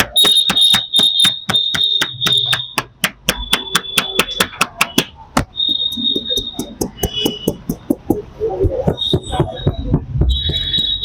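Rapid percussive hand strikes of a barber's massage, hands chopping and slapping on the body at about five strikes a second, slowing and turning irregular partway through. A high steady tone comes and goes over the strikes.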